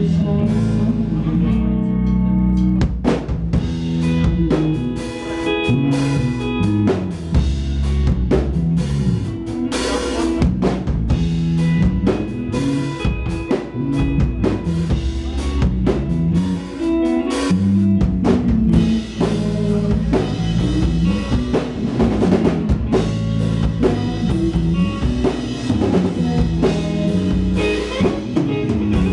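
Live rock band playing loudly: a full drum kit with dense, driving hits and an electric guitar.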